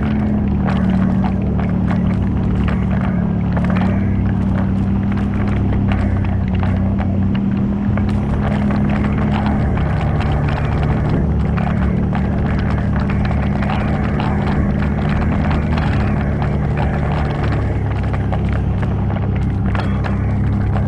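ATV engine running steadily under way, its pitch dipping briefly about halfway through and then picking up again, with frequent knocks and rattles from the ride.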